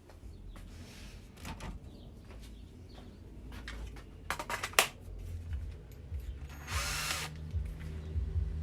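Power drill running, drilling a small guide hole in a 3-inch intake pipe ahead of tapping it for a sensor. A few sharp clicks come around the middle and a brief harsh burst near the end, over a low steady motor drone.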